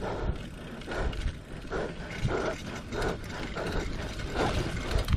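Bicycle freewheel hub ticking as the bike rolls over rough ground, with a regular crunch a little under twice a second and wind rumble on the microphone.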